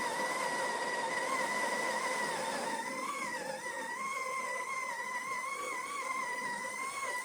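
Breville Oracle Touch's built-in burr grinder running steadily, grinding a single-shot dose into the portafilter, with a wavering mid-pitched whine over a gritty hiss.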